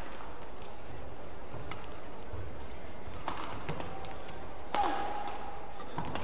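Badminton rally: a string of sharp racket strikes on the shuttlecock, about one a second, with a short shoe squeal on the court mat at the loudest strike near the end, over steady arena background noise.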